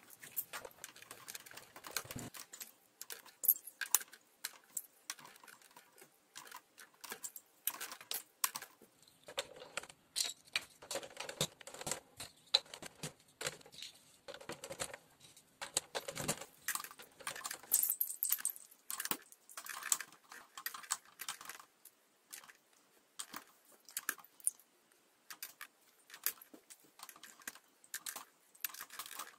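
Small plastic Exin Castillos building bricks clicking and clattering as they are handled and pressed into place on a toy castle, in many irregular taps.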